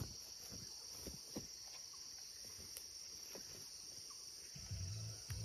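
Steady high-pitched insect drone with a few faint scattered knocks. About four and a half seconds in, a low steady engine hum sets in: a chainsaw idling.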